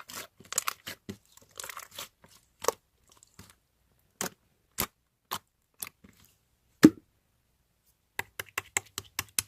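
Rustling and clicking for the first couple of seconds, then a few single sharp clicks spread out, then quick tapping, several taps a second, from about eight seconds in.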